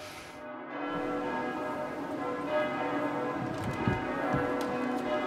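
Church bells ringing a peal, many overlapping tones that swell in over about the first second and then ring on steadily.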